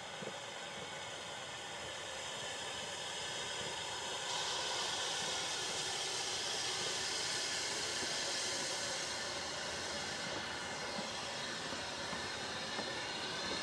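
Ffestiniog Railway narrow-gauge steam locomotive No 4, Palmerston, standing with a steady hiss of escaping steam, a little louder from about four seconds in.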